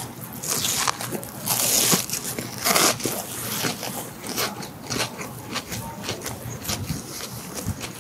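Close-up bites into a crispy breaded, deep-fried pork cutlet (donkatsu) rolled with gondre greens: three loud crunches in the first three seconds, then steady crunchy chewing.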